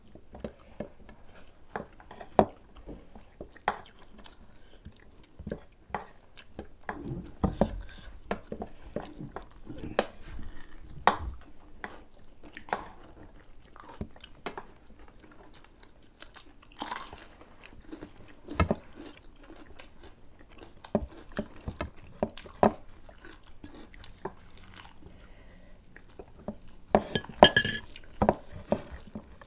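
Close-up eating sounds: chewing and crunching of food, with scattered sharp clicks of a spoon and fingers on plates. A louder run of crunching comes near the end.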